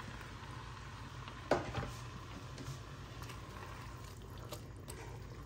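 Thick salsa scraped from a bowl into a pan of shredded chicken and onions, then stirred in with a spatula: soft, wet squishing and scraping. A single sharp knock about a second and a half in, over a low steady hum.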